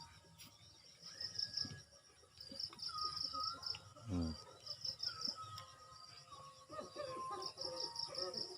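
Insects chirping in a pulsing high trill in the background, with a brief voice-like sound about four seconds in.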